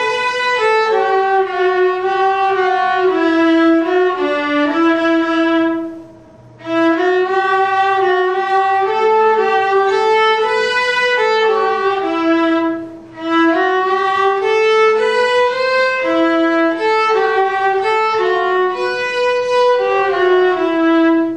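A viola duet of two bowed string instruments playing a melody in phrases, with two short breaks about six and thirteen seconds in. The piece closes on a held note at the very end.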